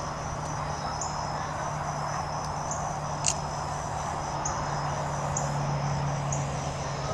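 Insects singing: a steady high-pitched trill with a short chirp about once a second, over a steady low hum and a wash of background noise. There is a single sharp click about three seconds in.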